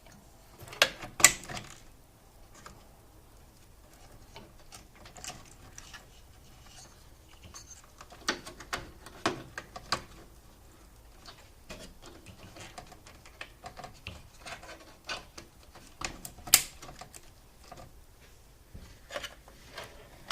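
Irregular clicks, taps and cable rustling as plastic connectors and wires are handled and pushed into a motherboard inside a computer case. There are two sharp loud clicks about a second in and another near the end.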